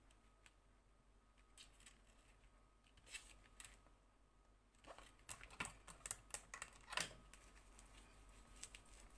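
Paper and cardstock being handled on a cutting mat: faint rustles and soft taps, with a run of sharper clicks and scrapes from about five to seven seconds in.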